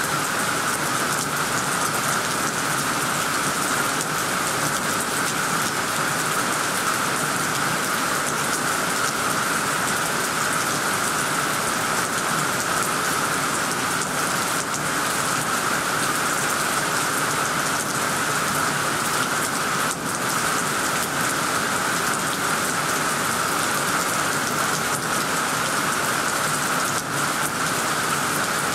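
Heavy rain pouring steadily onto tree leaves and a tiled roof, an even unbroken hiss of downpour.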